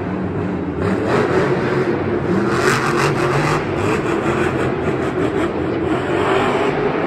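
Black Pearl monster truck's supercharged V8 engine revving hard as the truck drives the dirt course, surging loudest about three seconds in and again near the end.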